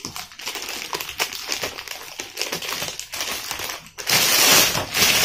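Thin clear plastic bag crinkling and rustling as it is pulled open from around a boxed action camera. The crackling gets louder about four seconds in.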